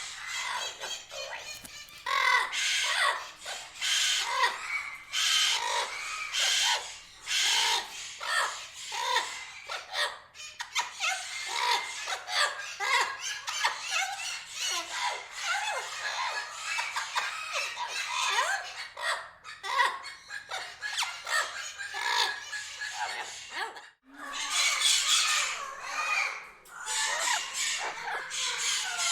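Parrots squawking and chattering: a dense run of short, high-pitched calls one after another, broken by a brief gap near the end.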